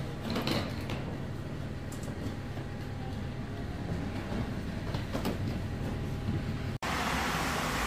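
Shuttle bus engine idling with a steady low hum, with a few brief scuffs and knocks as passengers step aboard. About seven seconds in it cuts to a loud, even rush of water running from a tap.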